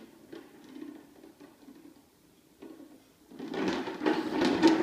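Hard plastic wheels of a child's balance bike rolling over a tile floor: a few faint knocks, then from about three and a half seconds in a loud, rough rattling rumble as the bike rolls close.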